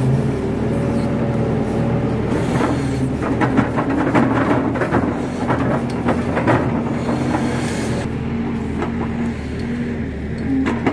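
Kato HD512 crawler excavator's diesel engine running steadily under working load, with knocks and crunches from the bucket digging and dumping wet mud in the middle few seconds.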